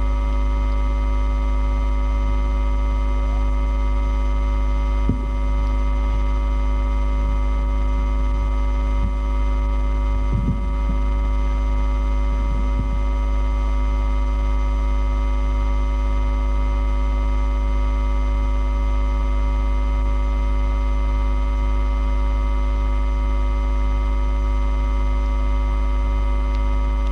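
Loud, steady electrical mains hum with a buzz of many steady tones, with a few faint brief sounds in the first half.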